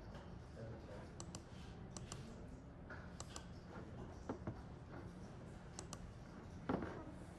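Faint computer mouse clicks, scattered and some in quick pairs, as a file is picked and opened. A single louder knock comes near the end.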